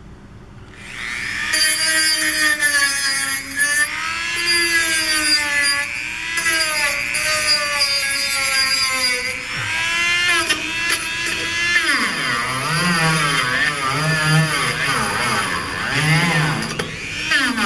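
Dremel rotary tool running against copper refrigerant fittings to clean them for soldering. It starts about a second in, and its whine rises and falls in pitch as the tool is pressed on and eased off, wavering faster later on.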